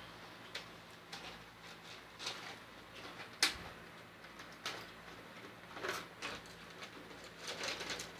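Quiet handling noises as medicine is tidied away: light clicks and rustles of packets and bottles, with one sharper click about three and a half seconds in.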